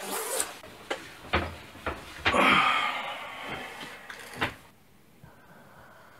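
A few sharp knocks, then a longer scraping rustle and a final thump. After the thump there is quiet room tone.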